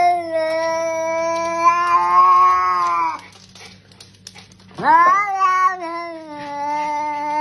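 A Scottish Fold cat giving two long, drawn-out yowls, one ending about three seconds in and the next starting near five seconds, each held on a steady pitch: an angry complaint at a dog licking her face.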